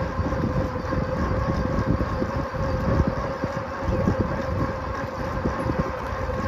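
Wind buffeting the microphone while riding a bicycle, a rough, uneven low rumble, with a steady high whine underneath.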